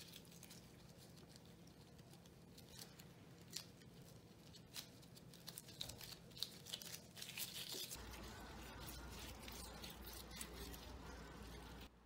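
Faint rustling and crinkling of disposable gloves handling soft rice-cake dough, pressing it around a filling and rolling it between the palms, with scattered small clicks and a steadier rubbing in the last few seconds.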